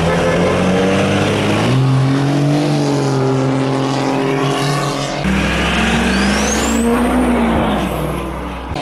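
Vehicle engine revving up and easing off, its pitch rising and falling, with abrupt changes about two and five seconds in; a high whistle climbs steeply about six seconds in.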